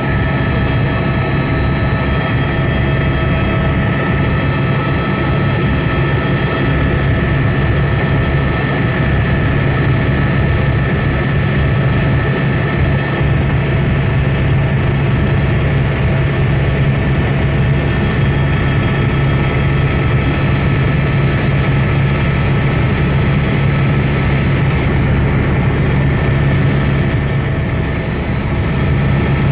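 Helicopter in flight: steady engine and rotor noise, a deep drone with a constant high whine over it.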